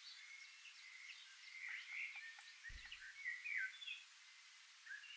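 Faint birdsong: small birds chirping and twittering in short, scattered calls, with a brief low thump just before the middle.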